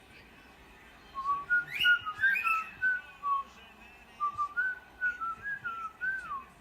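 Male cockatiel whistling its song: after a quiet first second, two loud rising whistles, then a run of short warbled notes ending in a falling glide.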